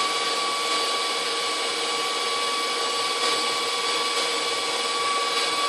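KitchenAid 6-quart bowl-lift stand mixer running steadily at speed, whipping egg whites, its motor giving a constant whine over an even hum.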